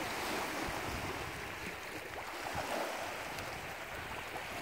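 Small lake waves lapping and washing onto a pebbly shore, a steady wash of water.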